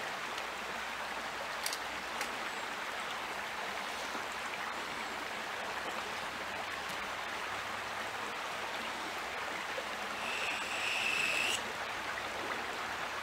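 Steady rushing of a small creek flowing. About ten seconds in, a high steady tone sounds for about a second and a half.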